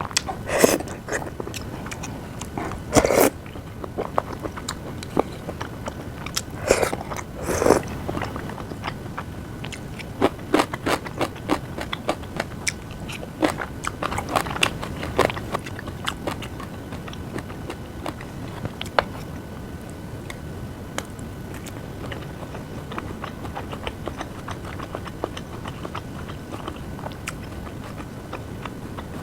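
A person eating and chewing close to the microphone, with many short wet clicks and crunches, a few louder mouthfuls early on, and sparser, quieter chewing in the second half.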